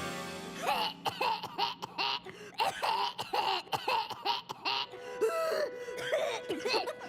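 A cartoon apple seedling coughing: a rapid series of short voiced coughs, starting about a second in and thinning out later, over background music.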